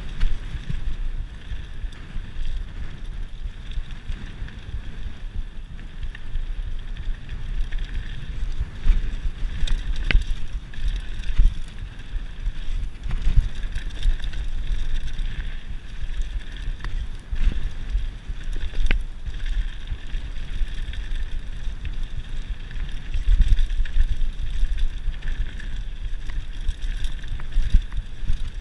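Mountain bike running fast down a loose gravel trail: wind buffets the camera microphone with a low rumble, the tyres hiss and rattle over stones, and the bike gives scattered sharp clicks and knocks over the bumps.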